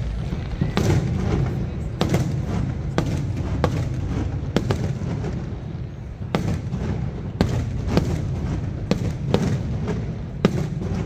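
Aerial fireworks bursting overhead: a string of sharp bangs, roughly one a second at uneven spacing, over a steady low rumble.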